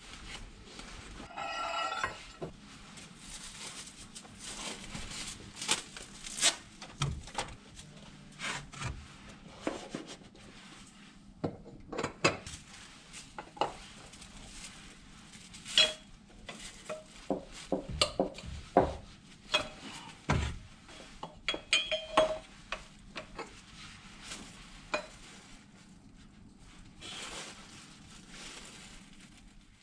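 Irregular sharp metallic clinks and knocks with some scraping, from hand tools and a football boot being handled at a workbench, over a faint steady low hum.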